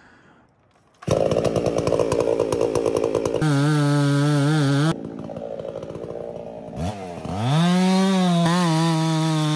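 Two-stroke chainsaw comes in suddenly about a second in at full throttle. It drops back to idle about halfway through, then revs up again near the end and is held at full throttle.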